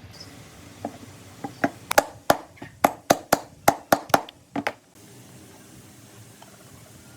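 A quick run of about a dozen sharp knocks, roughly three a second, that stops about five seconds in.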